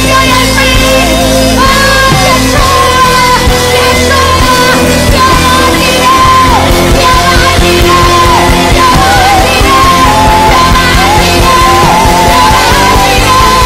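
A woman singing a spontaneous worship song into a microphone, with long held notes that waver in vibrato, over a live church band.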